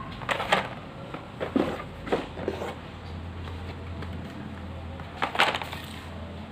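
Handling noises of a toy-car unboxing: a handful of sharp clicks and knocks, as of plastic packaging and a small diecast car being handled. A low steady hum comes in about two seconds in.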